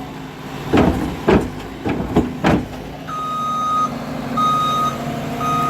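Skid steer engine running under load, with several loud knocks in the first couple of seconds. About three seconds in its backup alarm starts, a steady beep repeating a little under once a second as the machine reverses.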